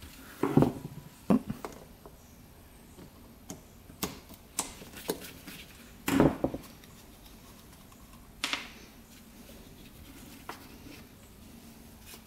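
Scattered knocks and clicks of a metal carburetor body and hand tools being handled and set down on a concrete floor, the loudest knock about six seconds in.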